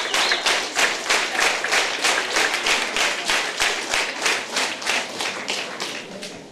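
Audience applauding with clapping in an even rhythm, about four claps a second, dying away near the end.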